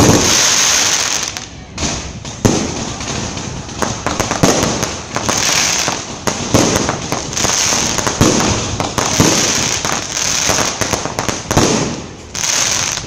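Fireworks going off overhead in rapid succession: a loud bang right at the start and another about two and a half seconds in, over a continuous dense crackling of aerial bursts and rising shots.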